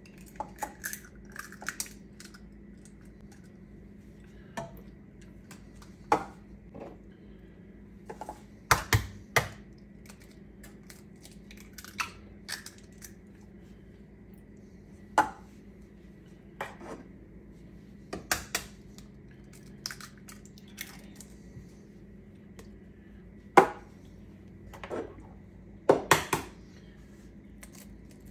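Raw eggs being tapped, cracked open and dropped one after another into a stainless-steel stand-mixer bowl. The sound is a series of sharp knocks and cracks, some in quick little clusters, with pauses between them.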